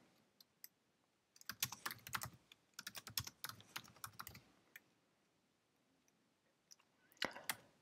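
Typing on a computer keyboard: a run of quick key clicks, then a pause of a couple of seconds, then a few more keystrokes near the end.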